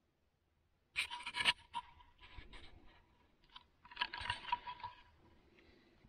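Short bursts of a small electric motor whining with scratchy gear noise from an RC4WD Zetros 6x6 model truck's drivetrain and gearshift. There are two longer bursts of about half a second to a second, with shorter scratches between them.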